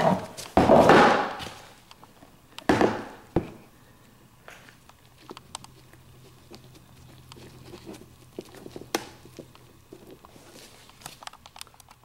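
Close handling noise: two loud rubbing scrapes in the first three seconds and a sharp click. Then come faint clicks and scratches as gloved fingers pick old silicone from the plastic drain pan's drain fitting, over a low steady hum.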